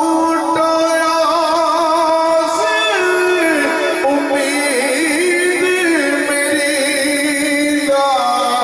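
A man singing a Sufi devotional song into a microphone, holding long ornamented notes that waver and glide up and down in slow melodic steps without a break.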